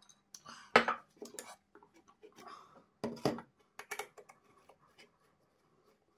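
A plastic motorcycle headlight housing and a metal screwdriver knocking on a hard stone countertop as they are handled: a sharp clack about a second in and another about three seconds in, with lighter clicks and a short scrape between them.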